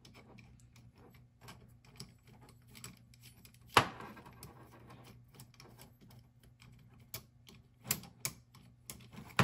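Small metal parts clicking and tapping as a nut is worked onto a bolt and a metal flat bar is fitted to a bolted metal frame by hand, with one sharp metal knock about four seconds in and two more near the end.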